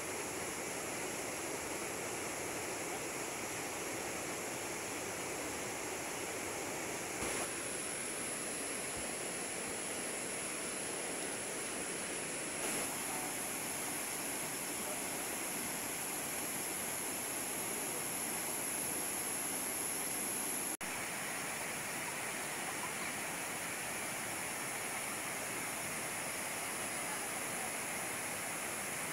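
Steady rushing water, an even unbroken rush that briefly drops out once about two-thirds of the way through.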